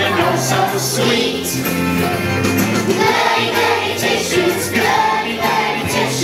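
Children's choir of kindergarteners singing a song with musical accompaniment.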